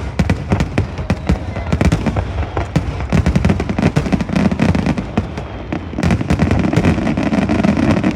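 Fireworks display: a dense, rapid barrage of bangs and crackles, several shots a second, with a heavier rumbling swell through the second half.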